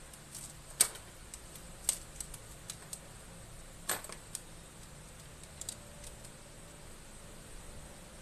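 Scattered small clicks and taps from hands handling parts inside an opened MacBook Pro, the sharpest about a second in, near two seconds and about four seconds in.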